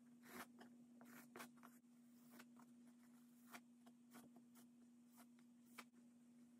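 Faint, irregular scrapes and ticks of a palette knife laying oil paint onto a canvas, over a steady low hum.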